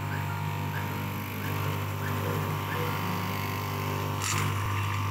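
Electric straight-knife cloth cutting machine running with a steady hum as its upright reciprocating blade is guided through a stack of fabric layers. A brief burst of hiss about four seconds in.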